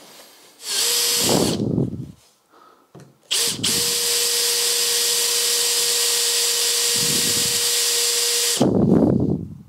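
Power drill with a twist bit drilling out the rivets that hold a lock to a fibreglass bonnet. A short burst of drilling is followed by a longer steady run of about six seconds with an even motor whine, which stops near the end.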